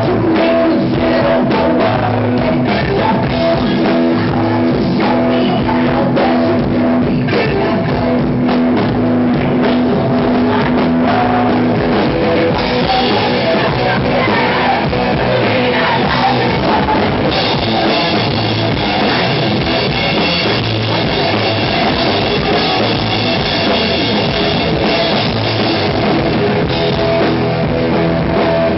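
Live rock band playing loud: electric guitar, bass guitar and drum kit, with a singer's vocals.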